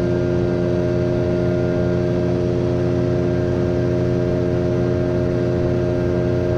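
Boat's outboard motor running at a steady cruising speed: a constant drone that holds one pitch without change.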